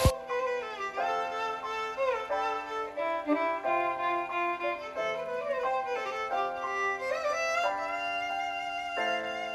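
Background music led by a violin playing a melody with slides between notes.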